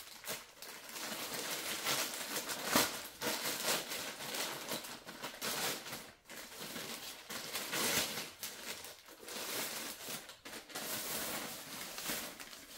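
Plastic poly mailer bag crinkling and rustling as it is torn open and handled by hand, in uneven bursts that are loudest about three seconds in. Near the end the jersey is pulled out of the bag.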